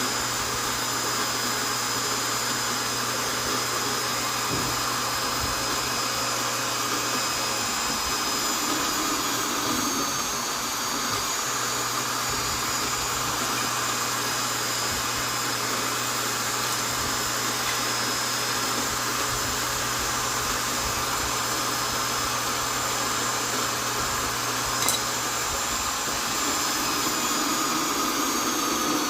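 Vonder electric drill running continuously with a steady motor whine, its pitch sagging briefly about ten seconds in and again near the end. A single sharp click comes late on.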